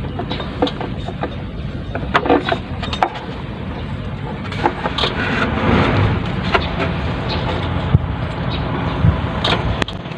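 Hands fitting a new rubber alternator belt onto its pulley: scattered clicks and knocks and the rub of belt against metal, over a steady low rumble.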